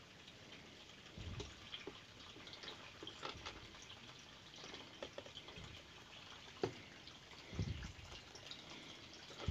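Faint dripping and trickling of aquarium water running through a primed siphon pump as the tank is drained. Small scattered clicks, a sharp click about two-thirds of the way in, and a couple of dull knocks.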